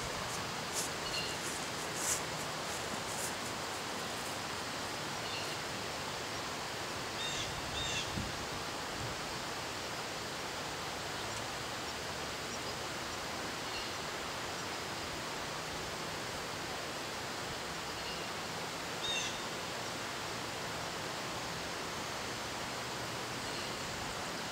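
Steady rushing of water over a river dam. A few short bird chirps come through twice, about a third of the way in and again past the middle, and a few faint clicks sound in the first seconds.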